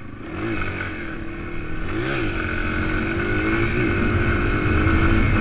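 Single-cylinder four-stroke engine of a 230 dirt bike running under way, with two brief rises and falls in pitch in the first couple of seconds, then steadier and growing louder. Wind noise runs under it, picked up by a helmet-mounted GoPro in its waterproof case.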